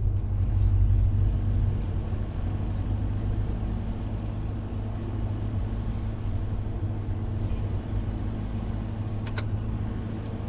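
Steady low rumble of engine and road noise inside a moving car's cabin, with a brief click about nine seconds in.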